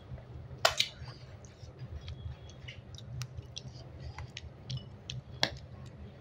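Close-up eating sounds from people eating with their hands: short wet mouth clicks and smacks from chewing and finger-licking, with a few sharper cracks, the loudest under a second in. A low steady hum runs underneath.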